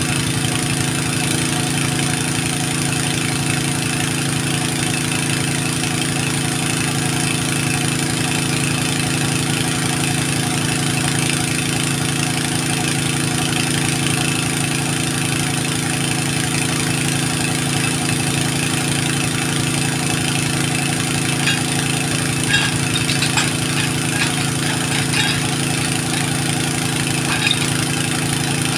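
An engine idling steadily, with a few light ticks in the last part.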